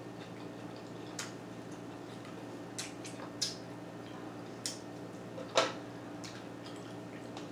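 A person eating pork chop by hand, close to the microphone: short wet lip smacks and mouth clicks, about eight scattered through, the loudest a little past halfway, over a steady faint low hum.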